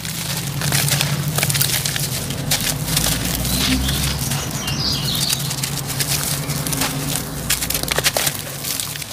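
Hands crushing and crumbling lumps of sand-cement mix in a shallow basin of water: a dense, continuous run of gritty crunches and crackles as the chunks break apart.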